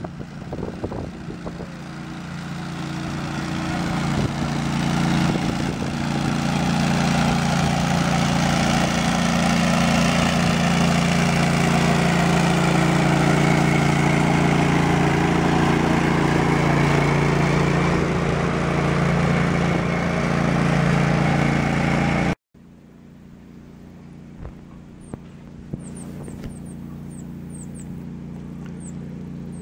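Small engine-driven air compressor running at a steady speed as it rides past on a flatcar, supplying air for a test run of a 15-inch-gauge 4-12-2 locomotive. It grows louder over the first several seconds, holds, then cuts off abruptly. After that there is a much quieter steady hum with a few short high chirps.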